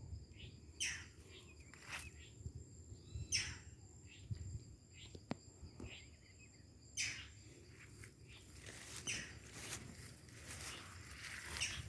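Scattered crackles and rustles of footsteps through forest leaf litter and brush, getting denser in the last few seconds, over a faint, steady high drone of insects.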